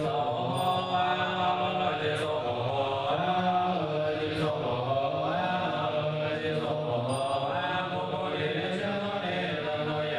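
Buddhist monks chanting together, long held notes that slide slowly in pitch.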